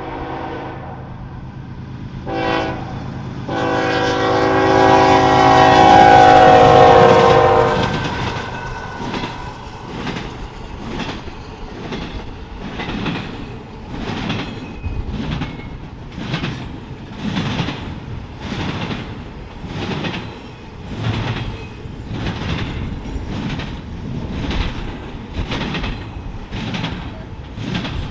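Norfolk Southern freight locomotive's air horn: a blast ending just after the start, a short blast, then a long loud one. The train then rolls past with a steady clickety-clack of wheels over the rail joints, about one knock a second.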